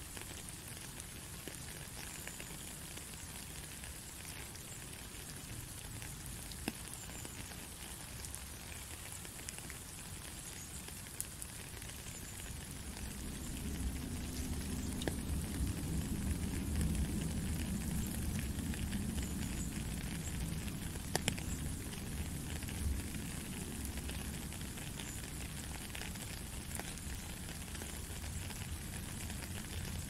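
Steady rain falling, an even hiss with scattered drop taps. A low rumble swells in about halfway through and eases off again.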